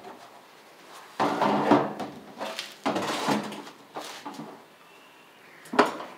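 Empty plastic jerrycans being handled and set down on a trailer bed: two stretches of hollow knocking and scraping, then a single sharp knock near the end.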